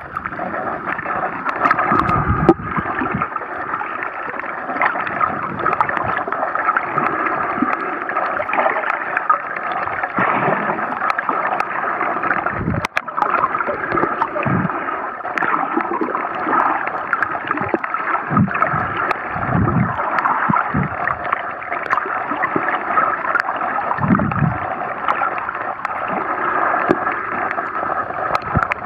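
Water heard underwater through an action camera's waterproof housing: a steady muffled rushing with gurgling, broken by several short low thumps spread through.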